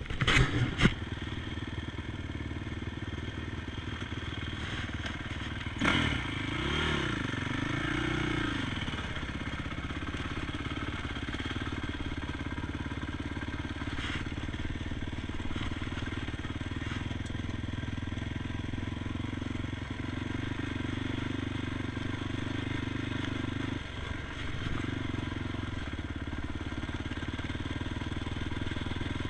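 ATV engine running, revving up and down twice about six seconds in, then holding a steady drone. A few sharp knocks come in the first second.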